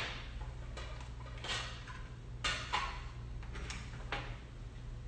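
A few light, irregular knocks and clicks of kitchen items being handled and set down on a counter, over a steady low hum.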